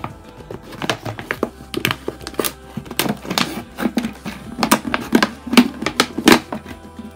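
Craft knife cutting through a thin plastic pop bottle, the plastic crackling and clicking irregularly as the blade works around to cut off the bottom.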